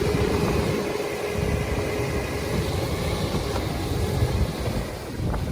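An all-terrain vehicle's engine running over a steady low rumble. A steady whine runs alongside it and stops about two seconds in.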